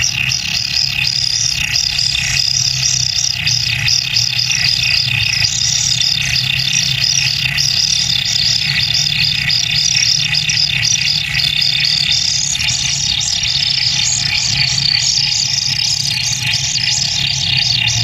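Kingfisher nestlings in an earth burrow giving a dense, rapid chorus of high begging calls as a parent arrives with a fish. A low steady hum runs underneath.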